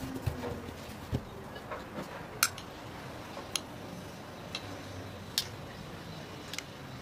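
A metal spoon clicking against a bowl about once a second, at uneven intervals, as melted butter is scooped up and drizzled over a thin sheet of rolled dough.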